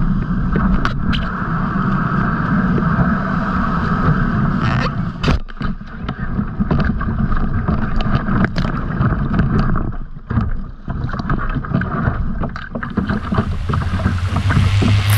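Water splashing and rushing against a plastic sit-on-top kayak's hull as it is pushed off into small surf, with repeated paddle strokes in the water.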